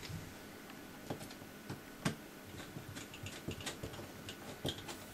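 Precision T5 Torx screwdriver driving tiny screws into a smartphone's plastic casing: faint, irregular light clicks and ticks as the bit turns and seats in the screw heads.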